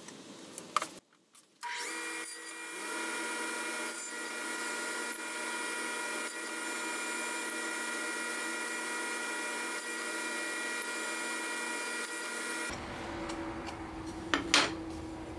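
Table saw motor running steadily with a fixed whine, starting about two seconds in after a click and cutting off abruptly near the end, followed by a single knock.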